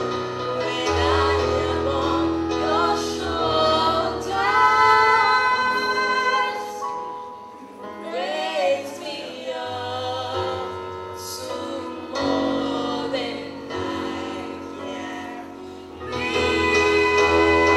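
Gospel hymn singing with a woman's voice prominent, over long sustained low accompaniment notes.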